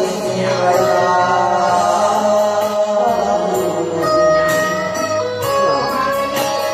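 Khaen, the bamboo free-reed mouth organ, playing held chords over a steady drone, with light percussion ticking along, in an instrumental passage of an Isan song.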